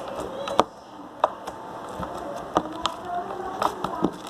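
Fluffy slime being squeezed and stretched by hand, giving sharp, irregular clicks and pops, about half a dozen.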